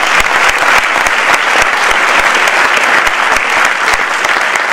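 A large audience applauding with dense, steady clapping.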